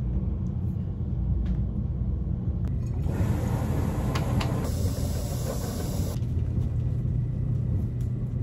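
White vinegar poured from a plastic jug into a plastic water bottle, a rush of running liquid lasting about three seconds from about three seconds in. A steady low rumble goes on underneath.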